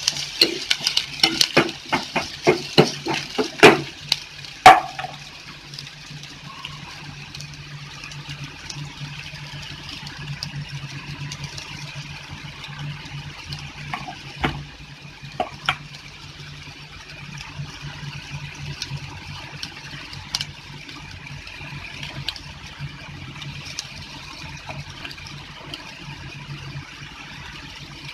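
A spoon clacks repeatedly against a stainless steel pot while stirring chopped onions for the first few seconds. The onions then sizzle steadily in hot oil, with an occasional crackle.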